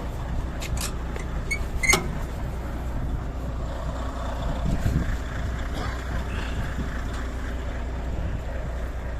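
Volvo truck's diesel engine idling steadily, with a few sharp clicks in the first two seconds and a brief louder patch of noise about five seconds in.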